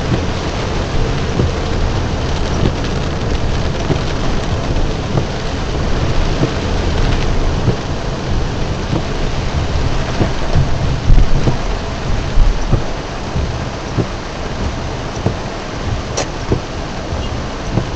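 Heavy rain drumming on a car's roof and windshield, heard from inside the car: a loud, dense patter of drops with a low rumble underneath. The rumble swells louder about eleven seconds in.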